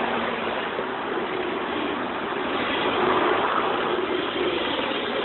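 Radio-controlled model drift cars running on asphalt: a steady mix of small motor whir and tyre noise, with a faint wavering pitch.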